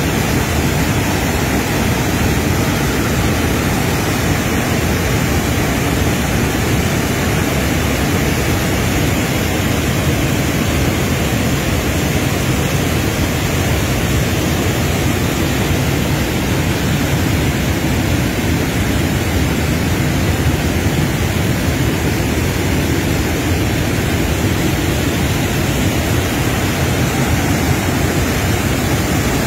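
Wide river waterfall: a large volume of water pouring over a broad rock ledge and churning into the river below, making a steady, loud rushing noise.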